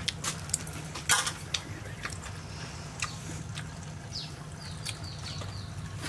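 Crisp lettuce leaf crinkling and crackling in irregular clicks as it is folded by hand around a salmon salad filling, loudest about a second in, over a steady low hum. Between about four and six seconds a bird gives a run of short falling chirps.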